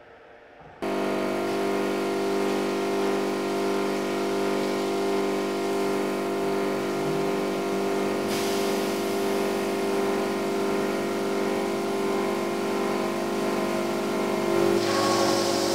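Thibaut bridge saw's large diamond disc blade running through a granite slab under water spray: a steady machine hum and whine that comes in suddenly about a second in, with more hiss in the last second.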